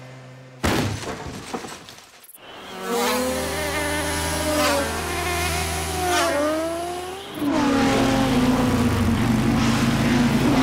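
Several cartoon flies buzzing in fast flight, their pitch swooping down and back up as they pass. The buzz starts suddenly about a second in, dips briefly, and turns loud and steady in the last few seconds.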